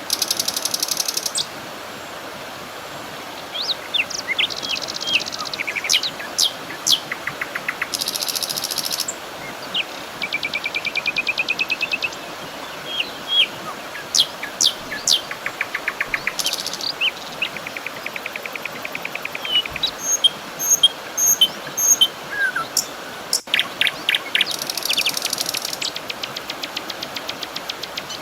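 Several songbirds singing and calling at once: quick chirps, short whistled notes and rapid trills, overlapping throughout, over a steady soft hiss.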